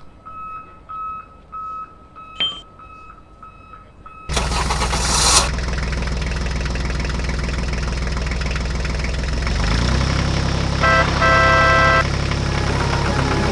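A steady beeping, about three beeps a second, then about four seconds in a tractor engine starts with a loud burst and settles into a steady diesel-like running. Its pitch drops a little near ten seconds in, and a short pitched tone about a second long sounds over it near the end.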